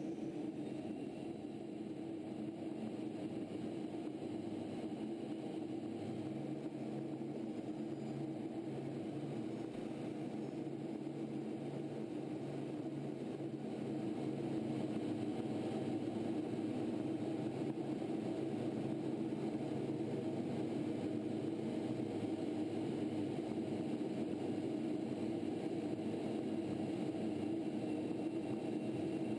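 Steady cabin drone inside a T-38 jet in flight: the noise of its twin turbojet engines and rushing air, with a faint steady hum. It gets slightly louder about 14 seconds in.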